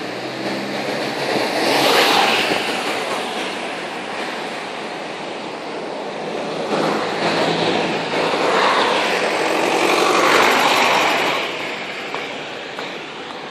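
City street traffic: vehicles passing close by, their tyre and engine noise swelling and fading about two seconds in and again from about seven to eleven seconds, over a low engine hum.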